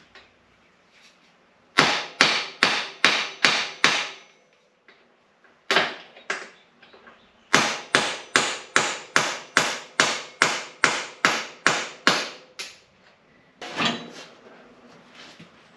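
Hand hammer striking metal parts on a motorcycle, tapping a part into place. The sharp blows come about three a second in two runs, a short one and then a longer one, with a few single knocks between and after.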